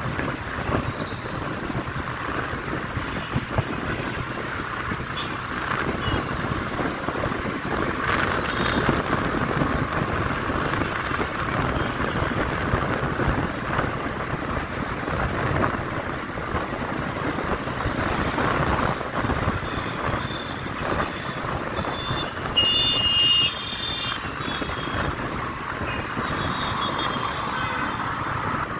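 Steady road noise from riding a motorcycle through city traffic: wind on the microphone, the bike's engine and passing vehicles. A short high horn blast sounds late on, with a fainter beeping a few seconds after.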